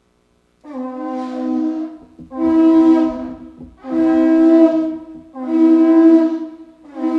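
A horn blown in a series of long, loud blasts, about five, each around a second and a half with short breaks between, starting just under a second in.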